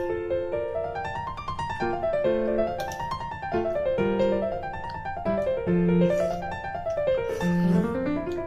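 Background piano music: quick runs of notes climbing and falling.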